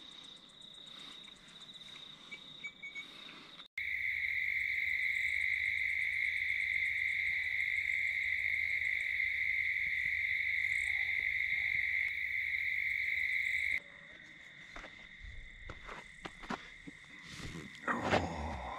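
Crickets trilling steadily in the evening. A louder, lower-pitched steady trill cuts in about four seconds in and stops abruptly some ten seconds later. A few knocks and rustles follow near the end.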